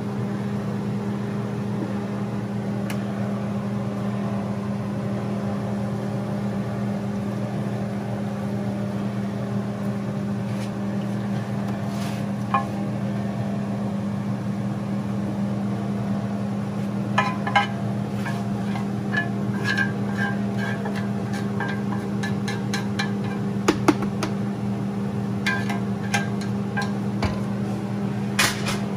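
A steady low machine hum runs throughout, under a wooden spatula scraping and knocking against a metal grill pan and a foil tray as coconut-milk sauce and vegetables are scraped out. The scrapes and knocks come in short clusters, most of them in the second half.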